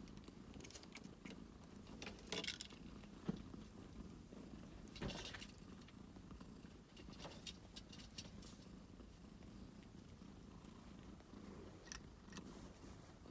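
A domestic cat purring steadily, with a few brief clicks and rustles.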